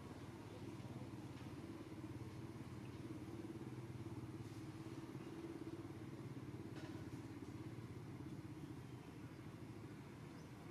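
A steady low mechanical hum, like a motor idling.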